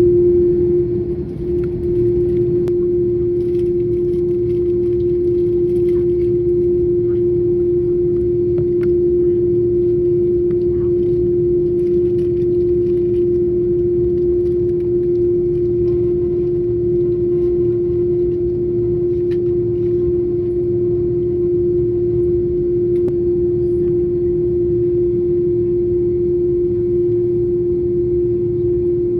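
Airbus A330-300 cabin noise on the ground: a steady hum with one strong held tone over a low rumble, with faint scattered clicks.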